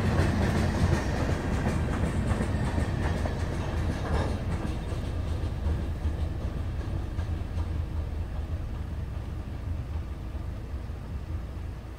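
Covered hopper cars at the tail of a freight train rolling past on the rails, the noise fading steadily as the last car moves away.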